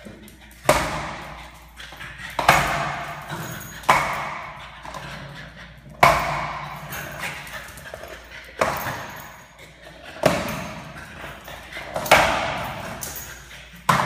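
A small skateboard knocking and rolling on a tiled floor, about eight times. Each time a sharp clack is followed by a rolling rattle that fades out over a second or so as the board is nudged along.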